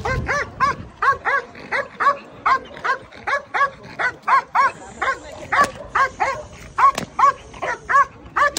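Belgian Malinois police dog barking rapidly and without pause, about three to four barks a second, in guard mode at the decoy before the attack command. A couple of sharp cracks cut through the barking about halfway through.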